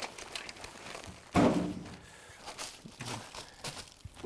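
Foil-faced duct insulation being handled and rolled over, with scattered crinkling and rustling and one dull thump about a second and a half in.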